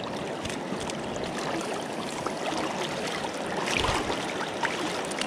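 River current running steadily around the wading angler, with a hooked sockeye salmon thrashing and splashing at the surface beside the net, loudest about four seconds in.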